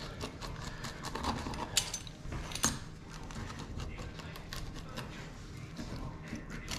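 Wheel pizza cutter rolling through a baked pizza onto a wooden cutting board, making a run of small clicks and scrapes, with two sharper clicks a little under a second apart around the two-second mark.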